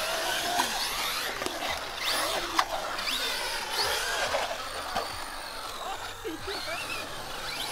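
Electric RC cars driving on concrete: motor whine gliding up and down with the throttle over a steady rush of tyre noise, with a few sharp clicks.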